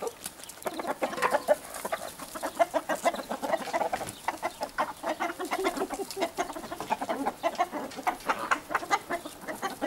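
A flock of chickens, hens and roosters, clucking busily as they are fed scraps, with many short clucks in quick succession.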